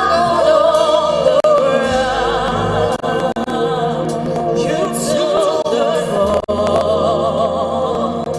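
Live gospel worship music: singing voices holding long, wavering notes with vibrato over a band with sustained bass notes.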